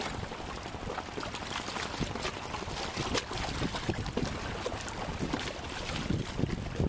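Seawater sloshing and lapping among concrete breakwater blocks, with wind buffeting the microphone and scattered light taps.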